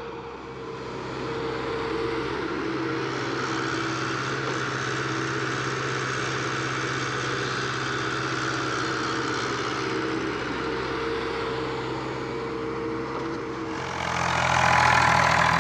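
JCB JS81 crawler excavator's diesel engine running steadily as the machine digs soil, a continuous even drone. Near the end a louder, higher sound comes in over it.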